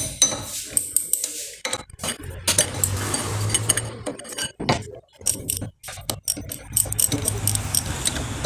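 Metallic clinks and knocks of a box spanner with a pipe slipped over its lever, worked on the rear sprocket's bolts to break them loose. The clinks are sharp and irregular, several a second.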